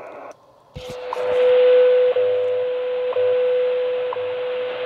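Belka-DX shortwave receiver tuned to the WWV time-signal station on 10 MHz. The hiss cuts out briefly as it is switched from lower sideband to AM. Then WWV's steady tone comes in over static, broken by a short second tick once a second, four times.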